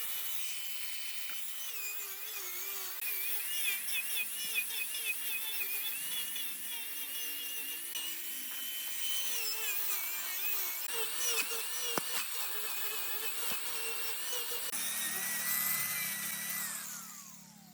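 Wood lathe running with a high, wavering whine and a hiss of a tool cutting the spinning wood. Near the end the whine glides steadily down in pitch as the lathe spins down.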